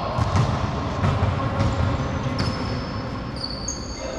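Basketball sneakers squeaking on the court in several short high squeals, mostly in the second half, over dull thuds of the ball bouncing and players running, in an echoing gym.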